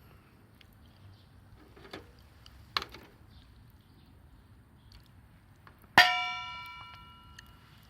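A metal object struck once, ringing out clearly and dying away over a second or two, after a couple of faint knocks.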